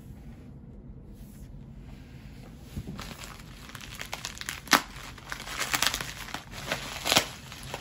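A USPS mailer bag being crinkled and crumpled in the hands. It starts about three seconds in as a run of crackles, with two louder sharp crackles toward the end.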